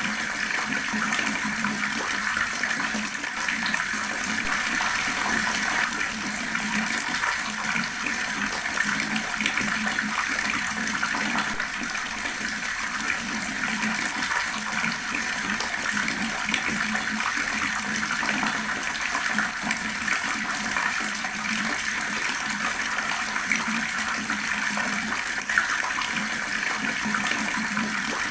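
Water running steadily from a tap and splashing with a continuous gurgle.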